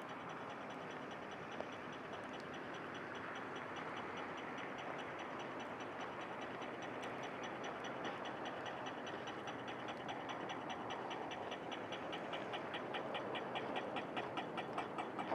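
Rapid, even ticking of a pedestrian crossing signal, growing louder through the second half, over a steady hiss of street noise.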